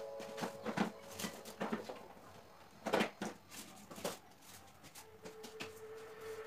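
Light knocks and clinks of household items being picked up and set down on a kitchen counter, scattered and irregular, the loudest about three seconds in. Background music fades out at the start.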